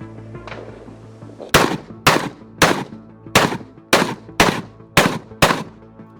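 AR-15 rifle firing eight rapid semi-automatic shots, about two a second, over background music.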